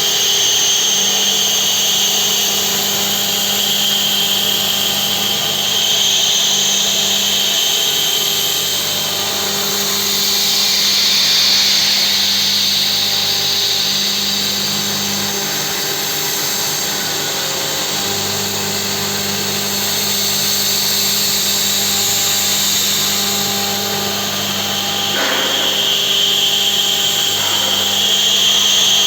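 CNC milling machine running steadily, its spindle and cutter giving a continuous high whine over machine noise, with tones that shift now and then and a brief sharp click about 25 seconds in.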